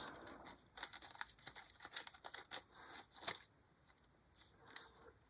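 Plastic kit-parts bag being handled, crinkling and crackling in a string of irregular short rustles and clicks, the loudest about three seconds in.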